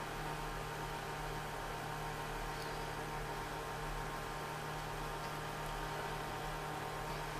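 Steady electrical mains hum with background hiss, with a few faint ticks.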